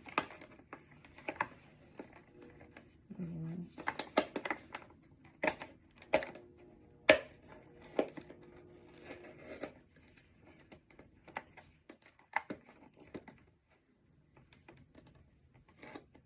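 Scattered clicks, taps and crinkling of plastic packaging and small items being handled up close while a price tag is pulled off, with one sharp click about seven seconds in as the loudest.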